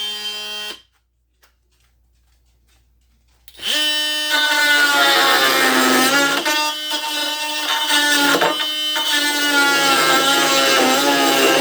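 Ryobi HP brushless oscillating multi-tool on its top speed, six. A brief buzz stops under a second in. About three and a half seconds in the tool starts again and runs with a steady high buzzing whine, its pitch sagging and dipping briefly twice as it works under load in the power test.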